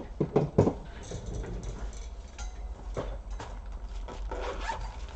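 Hand-handling knocks and clicks of laptop parts and a power adapter cable: a quick cluster of three or four sharp knocks about half a second in, then scattered lighter taps and clicks.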